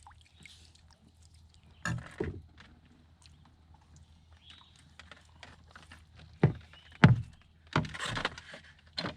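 Hollow thumps and knocks on a canoe's hull as a small carp is netted and brought aboard, the two loudest thuds coming about six and a half and seven seconds in.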